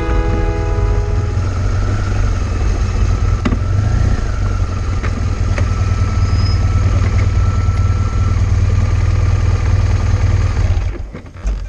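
Adventure motorcycle riding along a gravel road: a steady low engine rumble under wind and road noise, with a few sharp clicks. It falls away about eleven seconds in as the bike slows.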